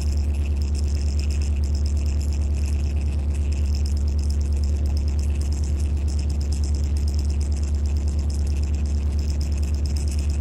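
EMD SD24 diesel-electric locomotive heard from inside its cab: a steady, loud low rumble from the engine and running gear, with a steady hum and a hiss above it, unchanging throughout.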